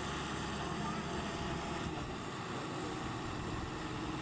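Excavator's diesel engine running steadily, with a constant low rumble that thins briefly about halfway through.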